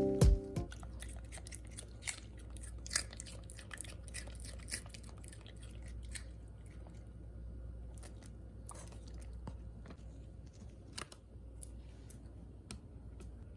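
Scattered soft clicks and crunches at irregular intervals, with a few louder ticks, over quiet room tone; background music stops just as it begins.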